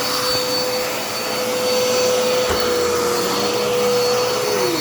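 Dirt Devil Endura Reach vacuum cleaner running, its motor giving a steady whine that sags slightly in pitch now and then. There is a brief knock about two and a half seconds in.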